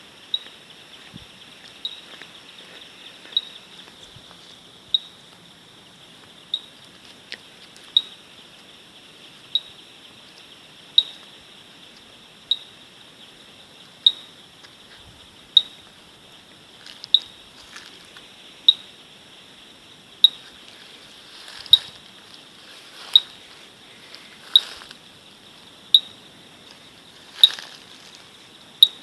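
Sharp knocking 'kik' calls, like wood tapped on wood, repeating about every one and a half seconds from an unseen night animal that locals believe is a calling wild snail. Beneath them runs a steady high-pitched drone of insects, and a few softer knocks join in during the second half.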